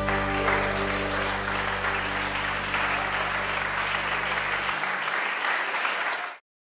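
Audience applauding over the band's last held chord, which stops a little before the end. The clapping then cuts off abruptly.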